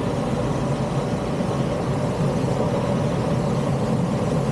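Steady in-flight cockpit noise of a Stemme S10 motor glider: a constant low hum and rush that holds at one level throughout.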